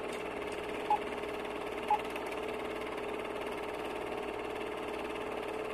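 A steady low hum with three short, high beeps about a second apart near the start, laid over an intro title card.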